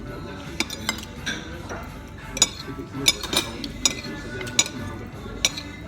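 Cutlery clinking against plates, about eight sharp clinks scattered through the stretch.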